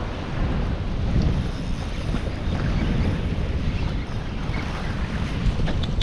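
Strong wind buffeting the microphone, with choppy sea washing around a kayak: a steady, low rumbling noise.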